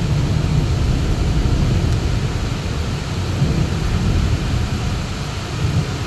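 Heavy rain pouring down in a thunderstorm, a steady hiss with a continuous low rumble of thunder underneath.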